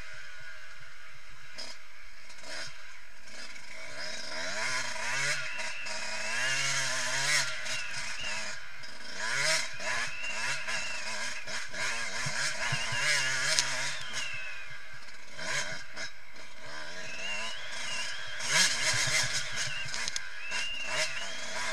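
Yamaha YZ125 two-stroke motocross engine being ridden hard, its revs climbing and dropping again and again through the throttle and gears, lighter for the first few seconds. Sharp knocks from the rough dirt track are scattered through it, heard from a camera mounted on the bike.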